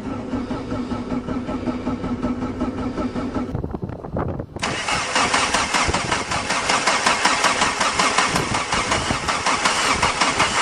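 Starter cranking a cold 1.6 turbo diesel VW (Jetta) engine after glow-plug preheat. It cranks with a steady whine for about three and a half seconds and stops briefly. It then cranks again, louder and rougher, without yet running cleanly.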